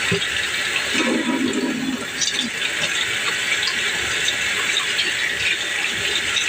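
Kitchen tap water running steadily into a sink, a constant hiss.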